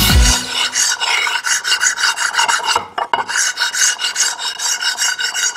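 Metal scraper scraping the flat face of a steel straightedge: quick rasping strokes, several a second, with a short break about three seconds in and a faint metallic ring under the strokes. This is surface scraping to take down high spots and bring the face flat.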